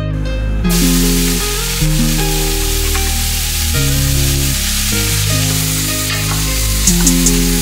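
Diced carrot and celery sizzling in hot oil in a stainless steel pot. The sizzle starts about a second in and goes on as the vegetables are stirred with a wooden spoon, with a few sharp clicks near the end. Plucked guitar background music plays under it.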